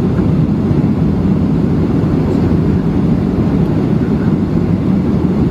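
Steady low cabin rumble of a Boeing 737-700 on its landing approach: the CFM56 jet engines and the airflow over the extended flaps, heard from a window seat over the wing.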